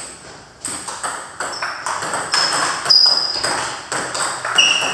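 Table tennis balls struck by paddles and bouncing on the tables in rallies, a quick, irregular run of sharp clicks, some with a short ringing ping. There is a brief lull about half a second in.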